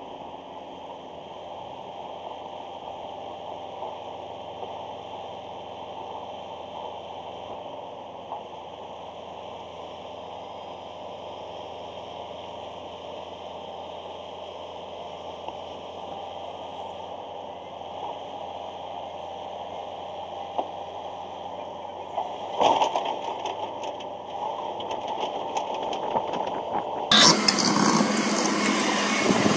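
Tracked excavator's diesel engine running at a steady hum. A few knocks come about 22 seconds in. About 27 seconds in, a much louder, harsher excavator engine and machine noise takes over suddenly.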